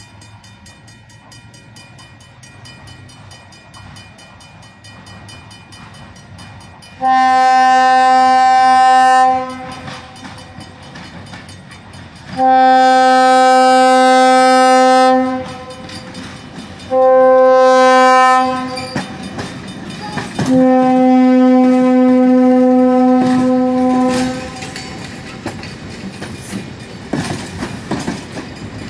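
Diesel locomotive air horn blowing two long blasts, one short and one long, the grade-crossing signal, as the train approaches over a low rumble. Then the wheels click over the rail joints as the coaches roll past.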